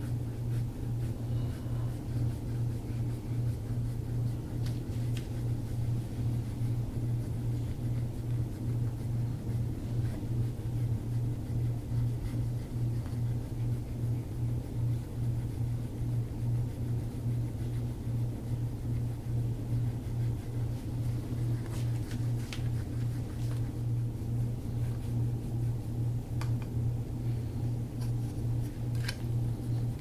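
Steady low mechanical hum with a fast, even pulsing, as from a small electric motor running continuously, with a few faint clicks near the end.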